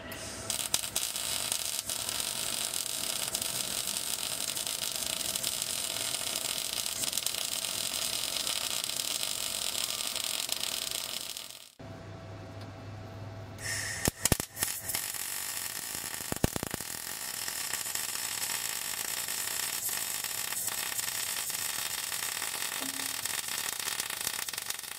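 Titanium wire-feed welder's arc crackling steadily while welding a transmission mount to the truck's crossmember, in two long runs with a short break about halfway.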